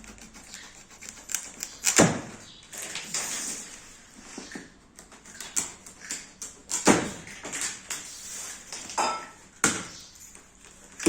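Packaging of a new washing machine being handled and opened: scattered knocks, scrapes and rustling of cardboard and packing, the sharpest knocks about two seconds and seven seconds in.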